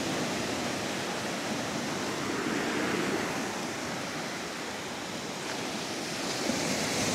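Sea surf washing onto the beach: a steady rushing that swells and eases, growing again near the end.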